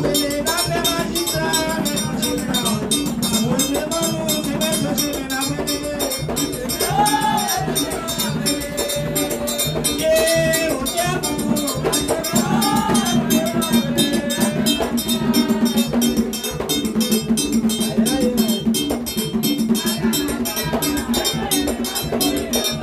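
Haitian Vodou ceremonial music: a struck metal bell keeps a steady beat over drums while a woman sings the song line through a microphone.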